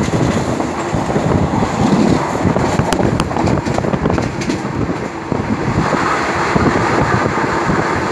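Passenger train carriage running at speed, heard from an open window: a steady rumble of wheels on rails mixed with rushing air, with a few sharp wheel clacks over rail joints about three to four and a half seconds in.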